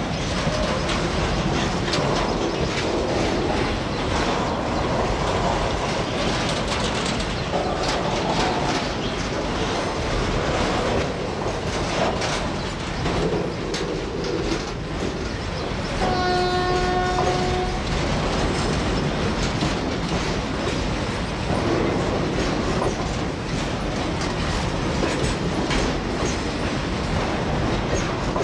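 Loaded double-decker car carrier freight wagons rolling past, wheels clattering over the rail joints. About 16 seconds in, a train horn sounds once, a steady note held for about two seconds.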